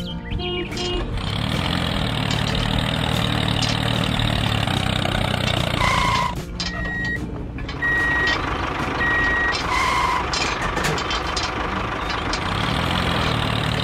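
A vehicle engine running steadily as a toy tractor pulling a trolley drives in, with electronic beeps: a two-tone beep twice, about four seconds apart, and three short single beeps between them.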